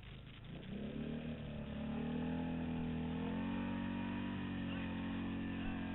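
ATV engine revving up, held at high revs for a few seconds, then easing off near the end.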